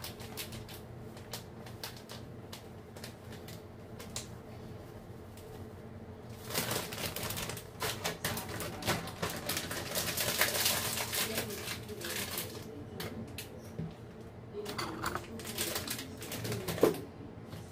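Kitchen items handled during coffee-making: scattered clicks and light knocks, with a few seconds of rushing, hissing noise in the middle and shorter bursts near the end.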